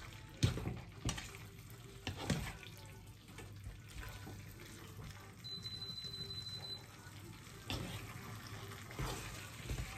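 Chicken pieces in spice paste frying gently in a frying pan, with a faint sizzle, as a spatula stirs and turns them, scraping and knocking against the pan several times.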